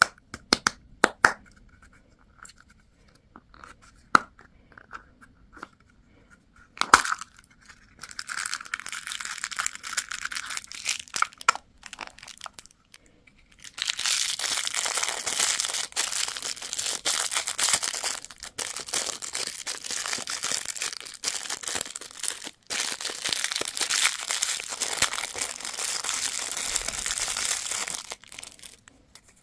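Candy packaging being torn open and crinkled: a few sharp clicks and taps at first, then rustling from about 8 seconds in. From about 14 seconds in comes a long, dense run of tearing and crinkling, broken once briefly, stopping just before the end.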